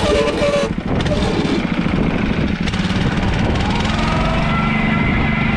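PermaGreen Triumph spreader-sprayer's small petrol engine running steadily under way. About four seconds in, its note settles into an even, steady tone.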